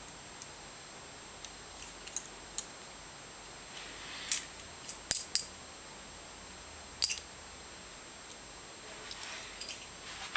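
Metal coins clicking against one another in the hands during coin sleight of hand: scattered sharp clinks, a quick cluster of them about five seconds in and another near seven seconds, with faint rustling between.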